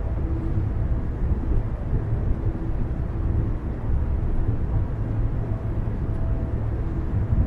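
Car driving along a road: a steady low rumble of tyre and engine noise, with a faint hum that comes and goes.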